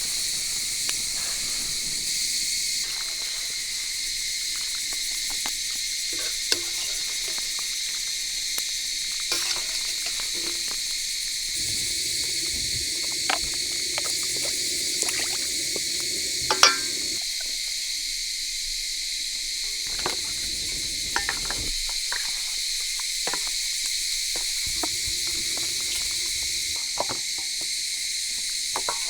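Steady high-pitched chorus of insects such as crickets or cicadas, with scattered light clicks and knocks.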